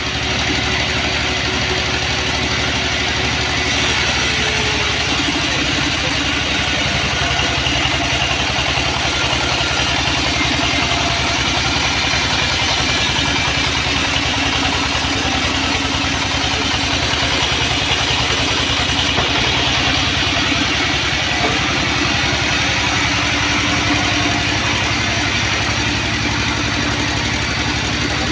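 Large band sawmill running steadily with a constant machine hum. From about four seconds in until about nineteen seconds a brighter hissing rasp joins it as the blade cuts through a big hardwood log.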